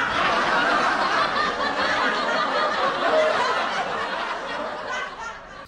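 Several people laughing and talking over one another, fading near the end.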